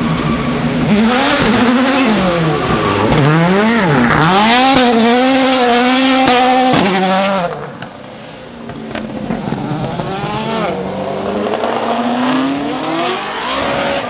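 Ford Fiesta WRC rally car's turbocharged 1.6-litre four-cylinder engine revving hard, its pitch swinging up and down over and over. About seven and a half seconds in it cuts off to a quieter car engine that rises steadily in pitch as it accelerates.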